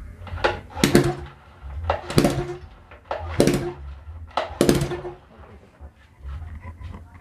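Four heavy knocks in an even rhythm, about one every 1.3 seconds, over a low steady rumble.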